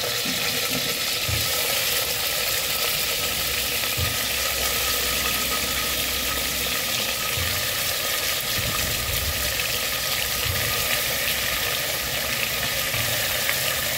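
Hot oil sizzling steadily in a pressure cooker as chunks of vegetable are added to the tempered spices, with a few soft thuds as pieces drop in.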